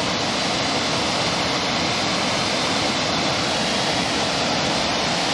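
Waterfall rushing steadily, an even wash of falling water with no change in level.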